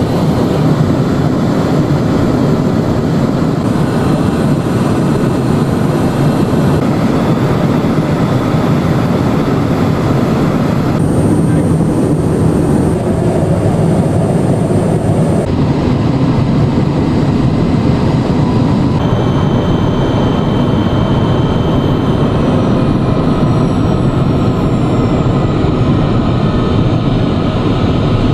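Steady cabin noise inside a Cessna Citation Mustang business jet: an even rushing of airflow and engine noise from its twin turbofans, with faint thin whines in it. The sound shifts abruptly a few times, and near the end a faint whine falls in pitch.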